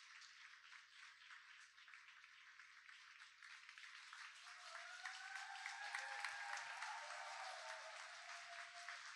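Audience applauding at the end of a performance, faint, swelling about halfway through, with a cheer from the crowd rising over the clapping.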